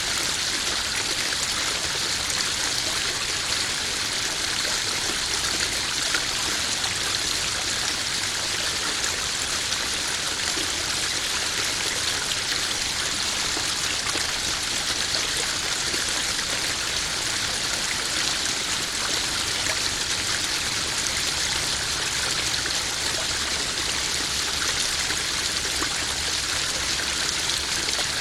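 Small garden waterfall splashing and trickling into a koi pond, a steady, even rush of running water.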